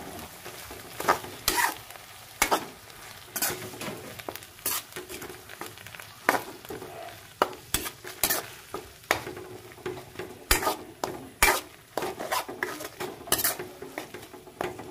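Metal spoon scraping and knocking against a wok while stirring ginamos fish paste sautéed with garlic and onion, in irregular strokes, with a light frying sizzle underneath.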